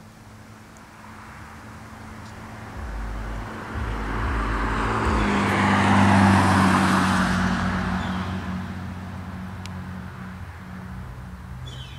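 A car driving past on the road: engine and tyre noise swell to a peak about halfway through and then fade away.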